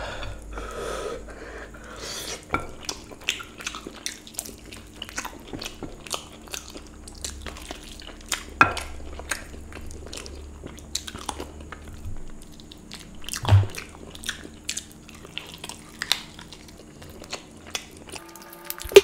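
A person eating by hand close to the microphone: chewing and biting, heard as a run of wet smacks and sharp clicks, with one louder smack about thirteen and a half seconds in.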